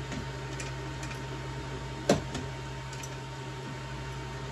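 Sharp clicks of hard chair parts being handled as a gaming chair's metal tilt mechanism is fitted to the seat underside: one loud click about two seconds in and another at the very end, with a few faint ticks between. A steady low hum runs underneath.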